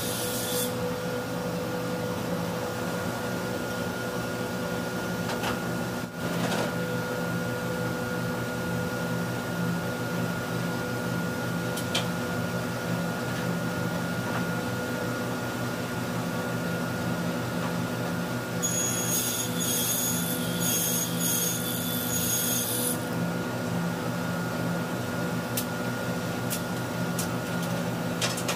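Table saw running steadily with a constant motor hum. For about four seconds, roughly two-thirds of the way through, a higher whine that breaks on and off joins the hum.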